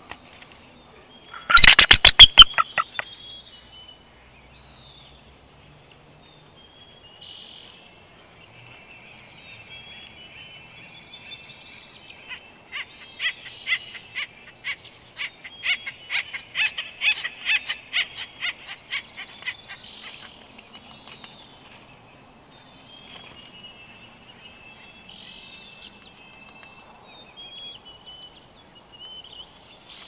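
Small wild birds calling around the nest, with a loud, very rapid run of about eight sharp notes about two seconds in and a long stretch of fast repeated notes in the middle.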